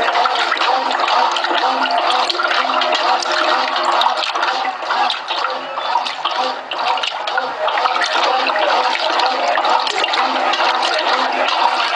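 Brastemp Clean 6 kg top-load washing machine agitating a double duvet in water: steady churning and sloshing, with the motor's hum coming and going in regular pulses.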